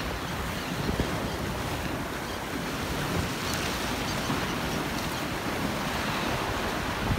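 Ocean surf washing and breaking against jetty rocks in a steady rush, with wind buffeting the microphone.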